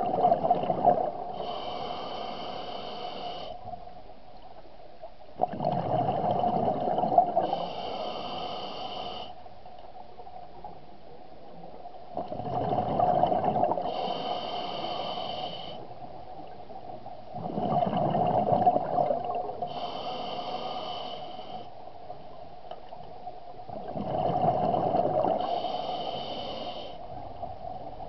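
Scuba diver breathing underwater through an open-circuit regulator, five breaths about six seconds apart. Each breath is a rush of exhaled bubbles, followed by a shorter, high hiss from the regulator on the inhale.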